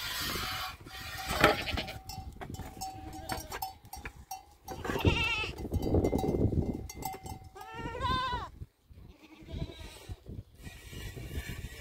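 Goats bleating in a pen: a short wavering bleat about five seconds in, and a longer wavering bleat about eight seconds in.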